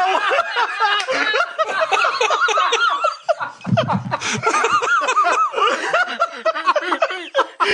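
Men laughing in a run of snickers and chuckles, with a short lull a little over three seconds in.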